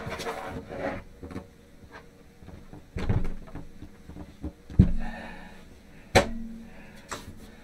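Black mesh panel of a PC case being unclipped and lifted off the case: rustling handling, then four sharp knocks and clacks, the loudest a low thump a little under five seconds in.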